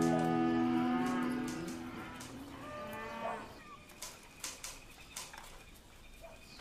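Cattle lowing: a long moo that bends in pitch and fades over the first two seconds, and a shorter one about three seconds in, followed by faint scattered clicks.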